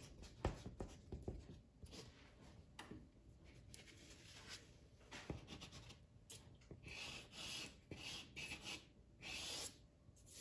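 Pastel stick scratching and rubbing across Canson paper in a run of short strokes, faint, with louder strokes in the second half.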